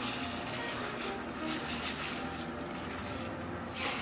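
Dry short-grain rice poured in a stream from a bowl into a paella pan of boiling vegetable stock, a continuous grainy hiss of grains hitting the liquid, swelling briefly near the end.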